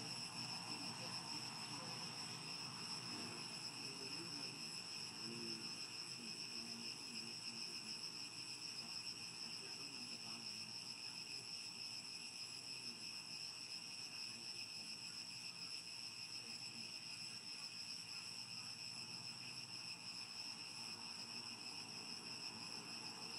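Steady chorus of insects: a continuous high-pitched drone made of several layered tones that holds unchanged throughout.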